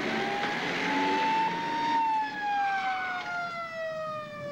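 Police car siren that wails up and then slowly winds down in pitch.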